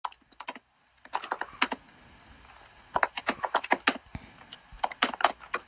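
Keyboard typing: quick keystroke clicks in four short runs, with brief pauses between them.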